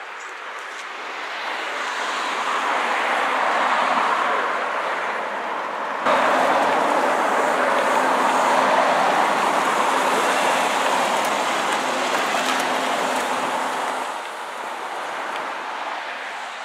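Road traffic noise from cars passing on a busy road: tyre and engine noise swelling and fading. About six seconds in it jumps suddenly louder, with a steady low engine hum that fades near the end.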